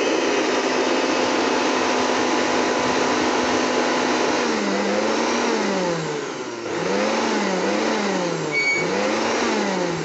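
Handheld electric air blower running, blowing air through a taped plastic nozzle into a latex balloon. Its motor whine is steady at first. About four seconds in, the pitch starts to sag and recover over and over, in dips about a second apart. There is a brief high squeak near the end.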